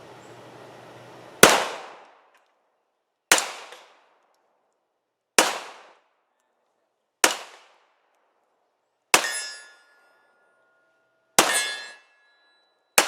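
A gun fired seven times in slow succession, about two seconds between shots. Each report is sharp and dies away quickly; the last three leave a ringing metallic tone behind them.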